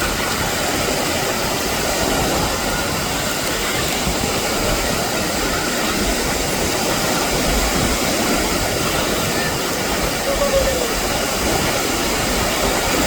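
Canadair CL-415 water bomber's twin turboprop engines droning steadily, a constant rushing drone with faint high whining tones in it.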